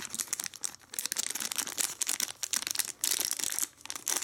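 Thin clear plastic bag crinkling and crackling in quick irregular bursts as two dry-erase markers are worked back into it.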